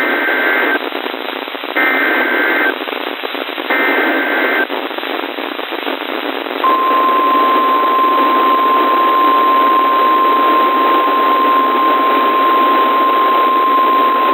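NOAA Weather Radio alert signalling over radio hiss: three short bursts of two-tone SAME digital header data about two seconds apart, then the steady 1050 Hz warning alarm tone starting about seven seconds in and holding, announcing a new weather alert.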